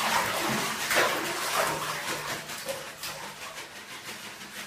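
Ice cubes rattling and a plastic bag crinkling as bags of ice are emptied into a bathtub. The sound is loudest about a second in and then tapers off.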